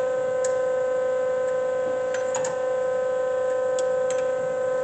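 Doall D-6 hydraulic surface grinder running under power, with its spindle, hydraulic pump and longitudinal table feed on: a steady, even pitched hum with a few light clicks.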